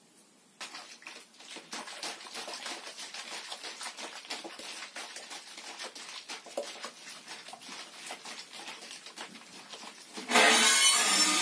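Dense crackling noise made of many rapid clicks. About ten seconds in, louder music cuts in.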